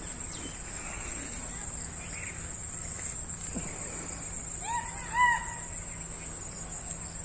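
Steady high-pitched insect drone, with a bird calling twice in quick succession about five seconds in; the second call is the loudest sound.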